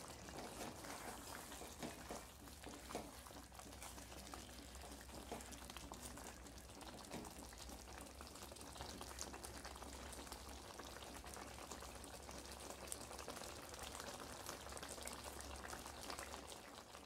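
Thick green masala chicken curry bubbling and sizzling in a nonstick pan, with a steady dense crackle of small pops, as a wooden spatula stirs through it. A steady low hum runs underneath and stops shortly before the end.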